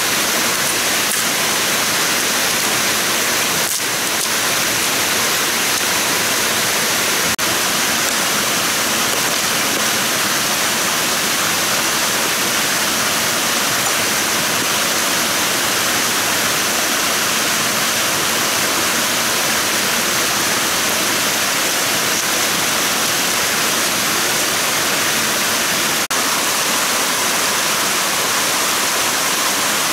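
Small forest waterfall and stream cascading over rocks: a steady rush of water. A few faint sharp clicks sound over it.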